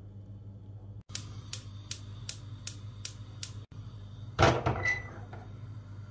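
Gas hob's spark igniter clicking about three times a second, then a louder knock as a pot of milk is set down on the burner.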